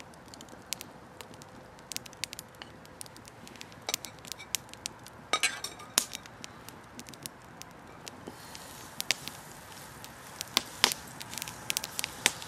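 A wood fire crackling and popping under a grill. A knife clinks against a small steel frying pan about six seconds in as butter is pushed off a plate into it. From about eight seconds in a soft hiss builds as the butter starts to sizzle in the hot pan.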